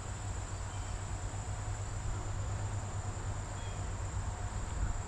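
Steady high-pitched drone of an insect chorus, crickets or similar, over a low steady hum.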